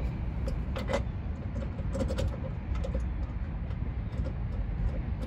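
A few light clicks and taps of parts being fitted back by hand on a minivan's engine, over a steady low rumble of wind and outdoor noise. The clicks come about a second in and in a quick cluster about two seconds in.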